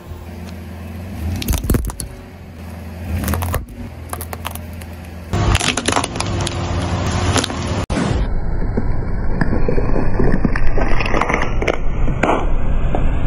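Car tyre rolling over a small wrapped packet on asphalt and crushing it: crackling and crunching, with sharp cracks about a second and a half and three and a half seconds in, then denser crackling.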